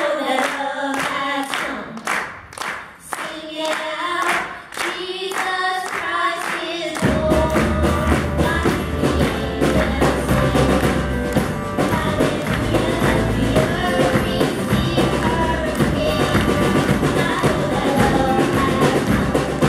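Live band performing a Christmas song: voices singing over steady hand-clapping in time, then about seven seconds in the full band comes in with bass and drums under the singing.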